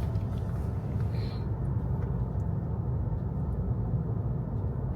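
Steady low road and tyre rumble heard inside the cabin of a moving Tesla electric car, with no engine sound over it.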